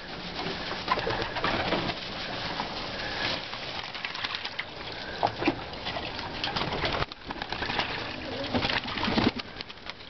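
Young homing pigeons splashing and fluttering in bath pans of water, with a continuous patter of sprayed droplets and wing flicks, and pigeons cooing.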